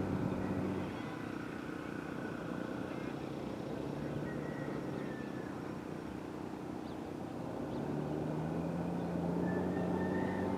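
Diesel engine of a Union Pacific SD70ACe-T4 locomotive running steadily with a low, even hum, which swells a little louder in the last few seconds.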